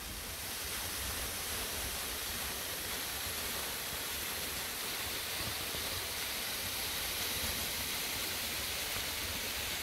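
Shtrokaloto waterfall, about 30 metres high: a steady, even rush of falling water.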